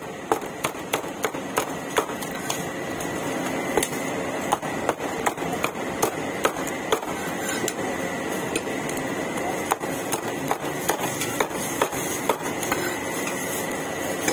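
Knife chopping on a cutting board: irregular sharp knocks, two or three a second, over steady background noise.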